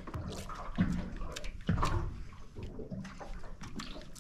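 Water sloshing and slapping against the hull of a small boat in several uneven surges, about a second apart.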